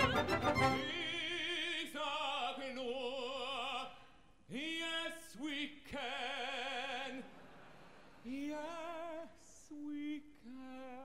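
Operatic voice singing wordless held notes with wide vibrato, sliding up into several of them, in short phrases with gaps between. Denser orchestral music breaks off about a second in.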